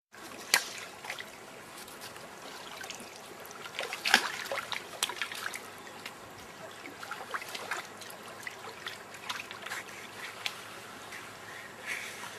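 Lake water lapping and trickling in small irregular splashes, with a sharper splash about half a second in and another about four seconds in.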